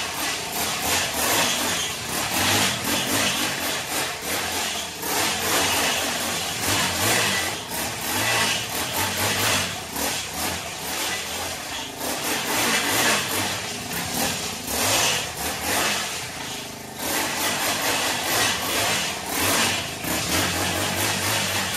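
Small engine of a homemade drift kart running and revving up and down repeatedly as the kart is driven in laps, easing off briefly about three-quarters of the way through.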